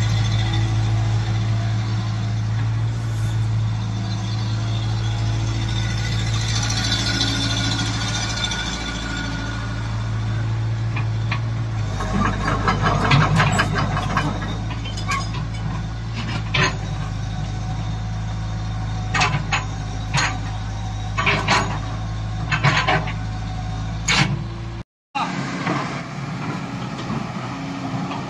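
A large engine running steadily with a low hum. From about halfway, a series of sharp knocks and clatter sounds over it. The sound drops out briefly near the end.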